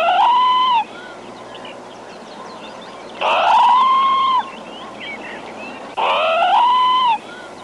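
Parrot calling three times, about three seconds apart: each call is loud, rising and then held for about a second. Fainter chirps of other birds come between the calls.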